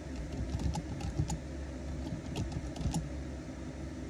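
Light, irregular clicks of typing on a keyboard during an online search, over a steady low hum.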